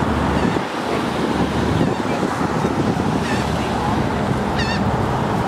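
Wind blowing over the camera microphone: a steady rushing noise with a low rumble, with a couple of short high chirps in the second half.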